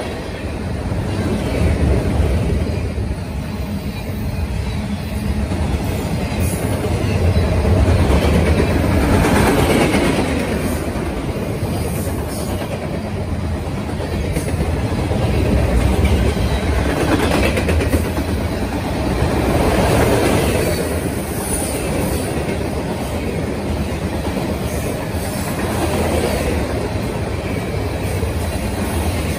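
Freight cars rolling past at speed: a steady rumble of steel wheels on the rails that swells and eases every few seconds.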